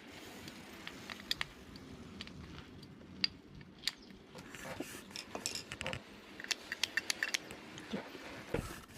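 Metal hand tools and scooter drive-train parts clinking and clicking as they are handled, with a quick run of clicks about six to seven seconds in.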